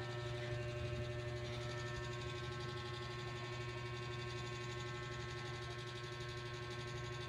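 A steady low hum with several fixed higher tones above it, even and unchanging, like a small electric motor or appliance running.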